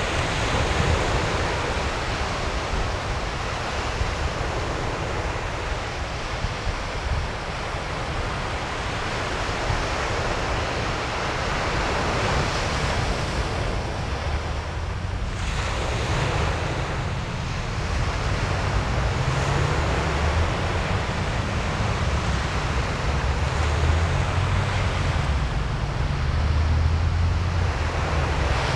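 Waves washing on the shore mixed with wind, a steady noisy wash that swells and eases, with wind buffeting the microphone in a low rumble that grows stronger about halfway through.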